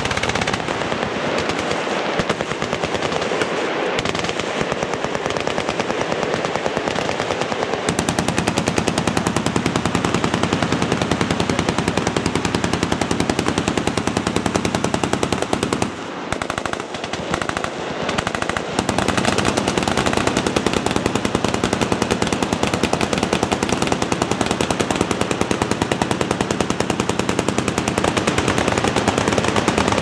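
Many machine guns firing at once, a continuous dense rattle of overlapping automatic fire. It grows fuller about a quarter of the way in, thins briefly around the middle, then fills back in.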